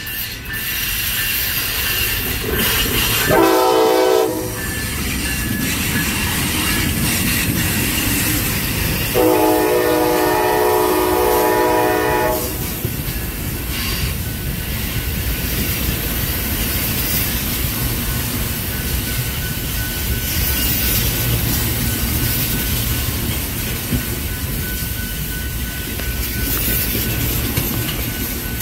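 Amtrak passenger train passing close by. The locomotive horn sounds a short blast about three seconds in and a longer one of about three seconds about nine seconds in, then the Superliner bilevel cars roll past with a steady low rumble.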